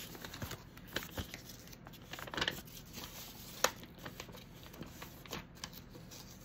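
Rustling and small scattered clicks and taps from a cross-stitch kit and its packaging being handled, with a sharper tap about three and a half seconds in.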